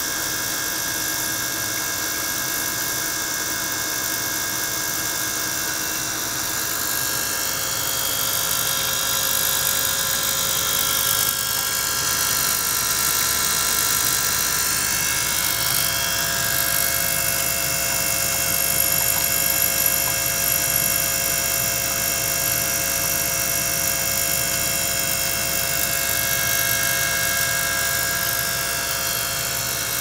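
Small liquid-circulation pump and ultrasonic transducer running in a water tank: a steady machine hum carrying many high, constant tones, a little louder after about eight seconds.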